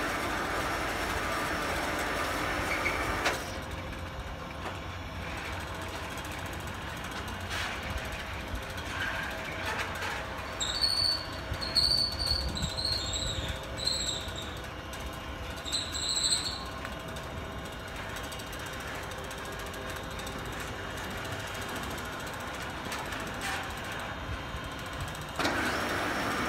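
Mobile boat hoist (travel lift) on the move with a sailboat hanging in its slings, its motor running steadily and louder for the first three seconds and again near the end. From about ten to sixteen seconds in, the lift's moving parts give a series of short, high-pitched squeals.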